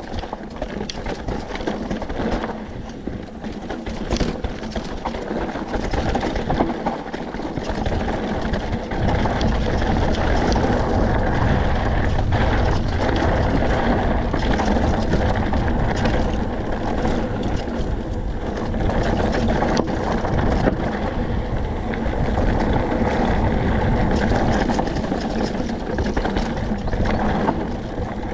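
Enduro mountain bike descending loose, rocky singletrack: tyres crunching over dirt and stones and the bike rattling over bumps, under a steady rumble of wind on the microphone. The wind rumble grows louder about a third of the way in.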